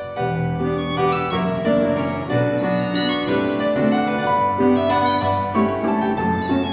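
Instrumental background music: a bowed violin melody over piano, with notes held and changing every half second or so.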